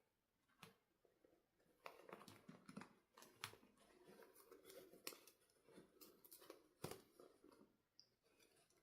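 Faint clicks and soft rustling of small plastic toy parts and packaging being handled, in irregular taps throughout.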